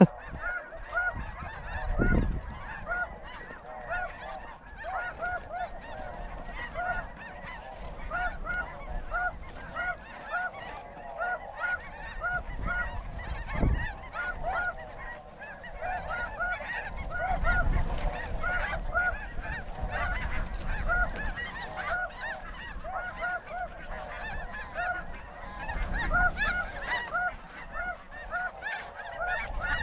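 A large flock of snow geese calling: many short, high honks overlapping continuously. A few low rumbles of wind on the microphone come through.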